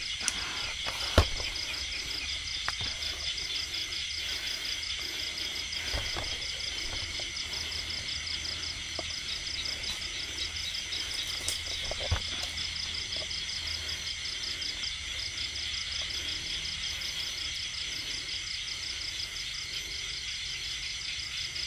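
A chorus of crickets trilling steadily in several overlapping rapid pulsing trills, with a few brief knocks scattered through it.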